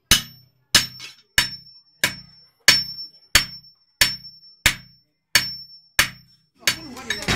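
Blacksmith's hand hammer striking metal on a small anvil, shaping scrap iron into a dundun drum bell. Steady, even blows come about one every two-thirds of a second, each with a short high metallic ring.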